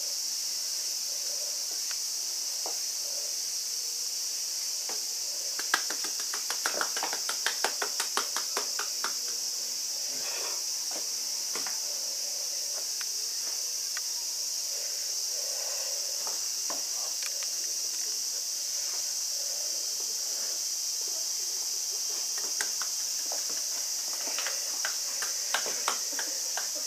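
Steady, high-pitched buzzing chorus of insects. About six seconds in comes a quick run of sharp taps, roughly six a second for three seconds, with a few scattered taps near the end.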